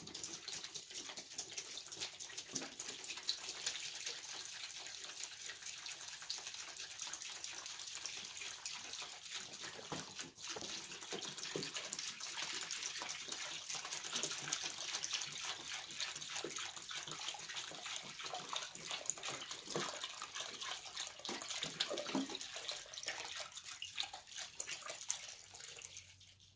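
Evapo-Rust rust-remover liquid poured steadily from a plastic jug into a plastic tub, splashing and gurgling as it fills a soaking bath for a rusted chandelier arm. The pour stops just before the end.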